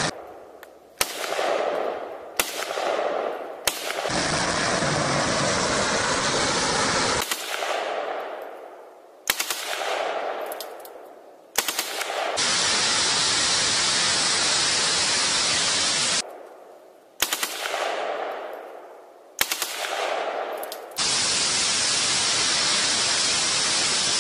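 Gunshots and firecrackers played back to back. Groups of two or three single loud bangs, each ringing out in an echo for a second or two, alternate three times with stretches of several seconds of continuous rapid crackle.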